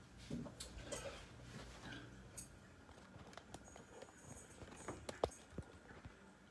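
Faint rustling with scattered light taps and clicks from things being handled on a desk and the phone being moved; one sharper click about five seconds in.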